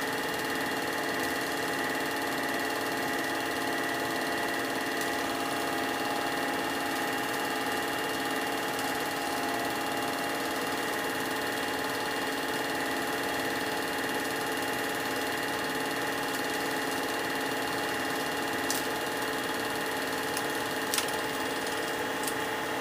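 Home-movie film projector running steadily, a mechanical hum with its motor whine, and a couple of faint clicks near the end as the film runs out.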